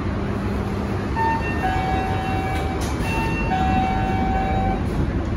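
Scania K230UB bus diesel engine idling steadily, heard from inside the bus. Over it an electronic two-note chime sounds twice, a short higher note followed by a longer lower one.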